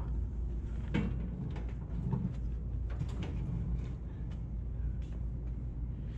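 Plastic lid and tub of a benchtop parts washer being opened and handled: scattered knocks and clicks, the loudest about a second in, over a steady low hum.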